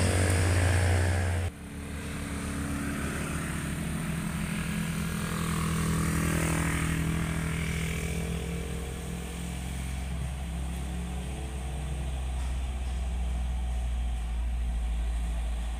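Loaded truck's diesel engine running loud, cut off abruptly about a second and a half in. Then a Hino box truck's diesel engine drones steadily under load as it crawls up a hairpin bend on a steep climb, with a lighter vehicle rising and falling past around the middle.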